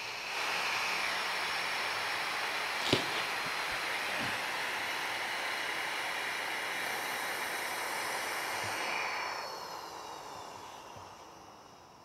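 Air hissing into a vacuum chamber through an opened brass ball valve as the chamber is vented back to atmospheric pressure. The hiss runs steadily for about nine seconds, then fades away as the pressure evens out, with a sharp knock about three seconds in.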